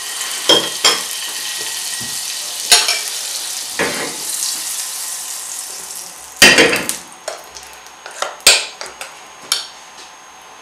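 Butter melting and sizzling in a hot nonstick frying pan, a steady hiss that fades after about six seconds, broken by sharp pops and spits. Several loud knocks, the loudest about six seconds in, as the pan is swirled and shifted on the gas-stove grate.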